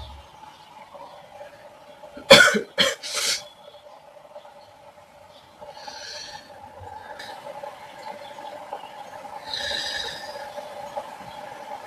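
A person coughs three times in quick succession about two seconds in, a cold-and-cough cough. Softer breathy hisses follow later over a steady low hum.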